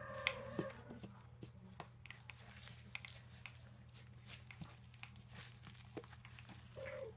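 Faint, scattered scraping and tapping of a small toy digging tool chipping at a chalky plaster fossil-dig block, breaking off crumbly chunks.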